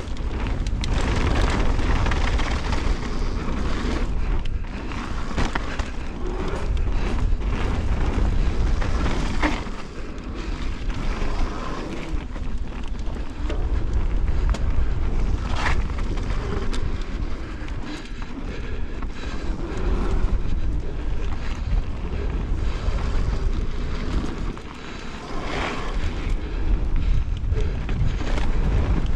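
Mountain bike descending a dirt trail at speed: heavy wind buffeting the action camera's microphone under the hiss of tyres on dirt, with frequent knocks and rattles as the bike runs over bumps. The noise eases briefly twice.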